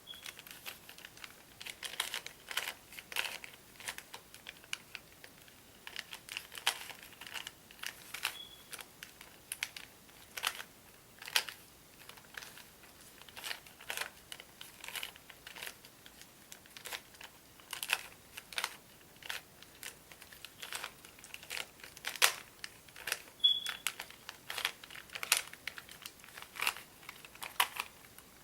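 Rubik's Cube being turned by hand: quick, irregular plastic clicks and clacks as the layers rotate, coming in spurts.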